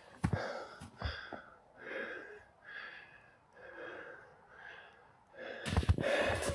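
A man panting hard from climbing, about one heavy breath a second. Footsteps crunch in deep snow at the start and again near the end, where the breathing grows louder.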